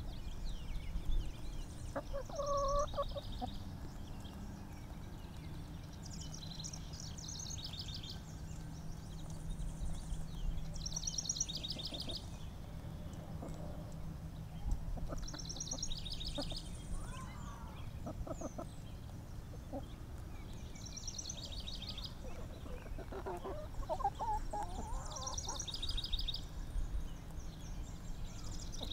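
Backyard chickens give occasional low clucks and calls while grazing. A wild songbird repeats a short, high trilled song every few seconds in the background, over steady low outdoor noise.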